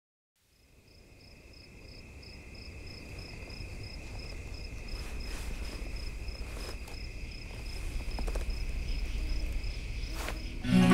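Night ambience of crickets fading in: a regular chirping pulse over a continuous high insect trill and a low rumble, growing steadily louder. Right at the end the song's instruments come in.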